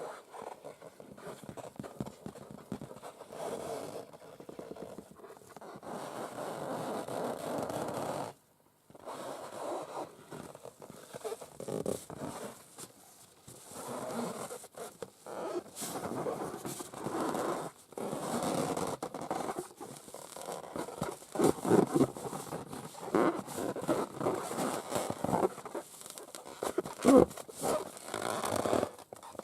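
Long acrylic nails scratching and rubbing over the rubber skin of an inflated balloon, in irregular strokes. The scratching stops briefly about eight seconds in, and a few strokes later on are louder.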